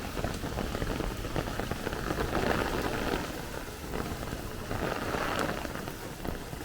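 Rain falling steadily on the street during a thunderstorm, with single drops ticking now and then.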